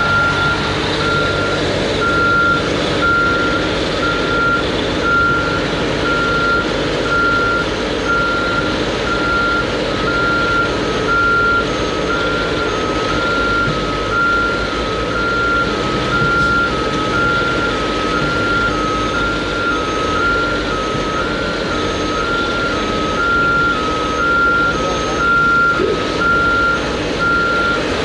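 Backup alarm of a dump truck reversing with a load of backfill rock, beeping about once a second over the truck's diesel engine running. About a third of the way in, a second, slightly lower-pitched backup alarm joins, beeping out of step with the first.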